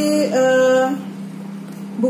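A woman's voice holding a drawn-out hesitation vowel at one steady pitch for about a second, then dropping to a quieter pause. A steady low hum runs underneath.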